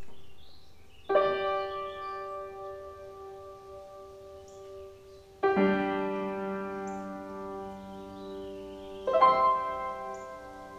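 Piano playing three slow chords, each struck about four seconds apart and left to ring and fade.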